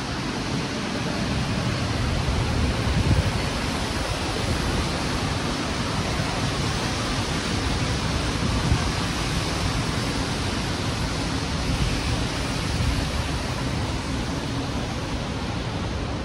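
Hurricane wind blowing steadily, a loud rushing hiss with low, rough buffeting of the wind against the microphone.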